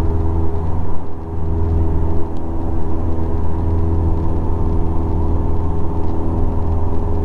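Cessna 172's piston engine and propeller running steadily at climb power, heard from inside the cockpit: a strong low drone with a stack of steady engine tones above it.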